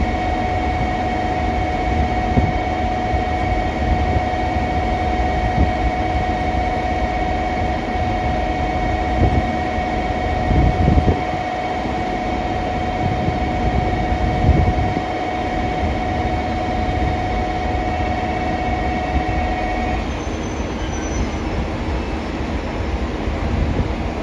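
Platform approach warning bell ringing steadily as a continuous electronic tone, warning that a train is coming in, then stopping about 20 seconds in. Under it is the low rumble of a JR Kyushu 787-series train approaching the platform.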